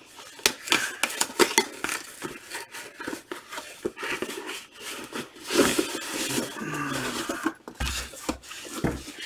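A cardboard Priority Mail shipping box being opened by hand: repeated crackles, taps and rustling of cardboard, with a longer rustle about five and a half seconds in. Near the end, an inner cardboard box is pulled out of it.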